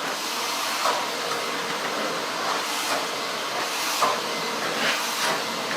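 Vacuum cleaner running with a steady hissing rush, briefly swelling and brightening about once a second as the nozzle is moved.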